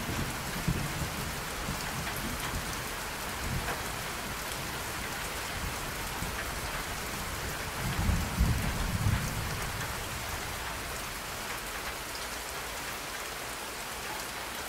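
A steady hiss like heavy rain, with a deep rumble about eight seconds in.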